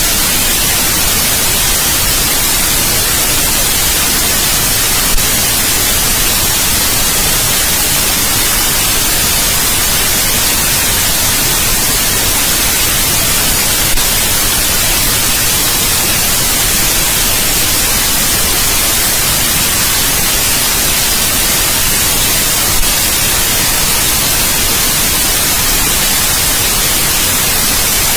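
Steady, unvarying white noise hiss, with three faint brief clicks.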